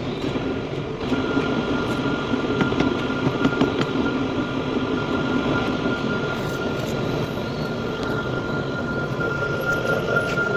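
Heavy workshop machinery running steadily, a dense mechanical rumble with a steady high whine that comes in about a second in.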